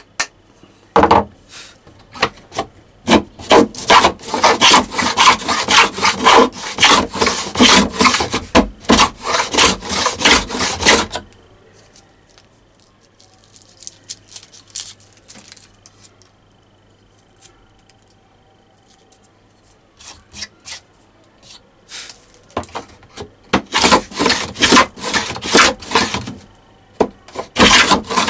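Wooden rebate plane cutting a groove along a pine strip: a fast run of planing strokes shaving the wood, a pause with a few small clicks, then a second run of strokes near the end. A single sharp knock about a second in is the hammer tapping the plane's blade to set it deeper.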